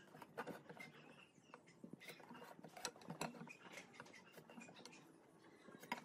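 Faint, scattered clicks and taps of a steel combination square and a pen being set against and slid along wooden strips on a workbench while they are marked out.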